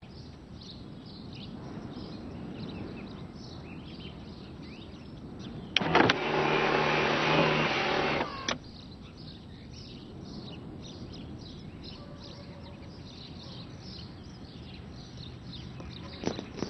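Small birds chirping over a quiet outdoor background. About six seconds in, a loud steady mechanical whirring starts with a click, holds for about two and a half seconds and cuts off with a click. A couple of sharp clicks come near the end.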